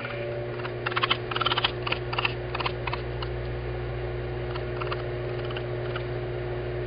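Microwave oven running with a steady hum, with a burst of irregular clicks and ticks about one to three seconds in.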